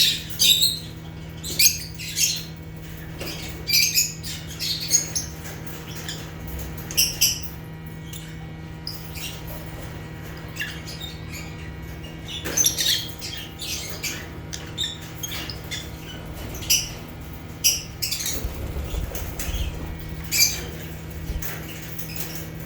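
Lovebirds calling in short, shrill chirps and squawks that come in irregular clusters with short pauses between, over a steady low hum.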